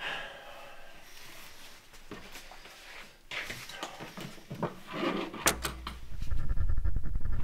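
Small knocks, clicks and rustles of equipment being handled on a workbench. About two-thirds of the way in, a deep low rumbling drone comes in and swells, growing louder toward the end.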